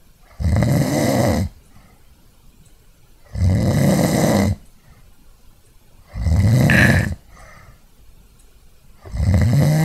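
Snoring: four loud snores about three seconds apart, each lasting about a second, with quiet breathing between them. The third snore carries a brief high whistle.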